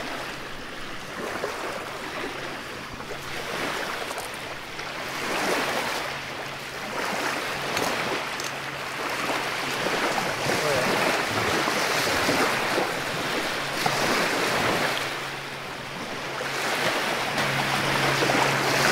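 Small waves washing onto the shore, swelling and falling every few seconds, with wind in the background.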